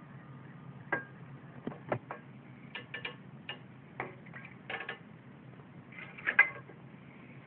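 Irregular light clicks and taps, about a dozen, unevenly spaced, with the loudest pair near the end, over a faint steady low hum.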